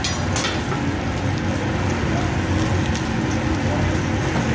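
Lobster tails, shrimp and salmon sizzling steadily on a hot teppanyaki flat-top griddle over a low steady hum, with a few sharp metal clicks from the chef's spatula and fork near the start.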